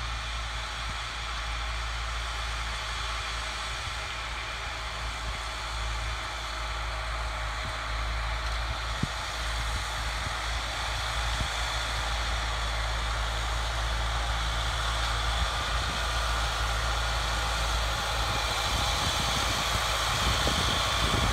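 Zetor 9540 Turbo tractor's turbo diesel engine running steadily under load while pulling a 3 m disc harrow and seed drill, growing gradually louder as it approaches.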